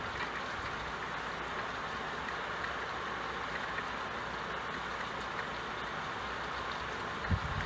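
Steady rain falling in an even patter, with a couple of short low thumps near the end.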